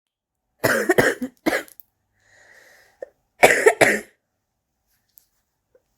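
A person's smoker's cough: a fit of several hacking coughs about half a second in, then a second, louder fit about three and a half seconds in.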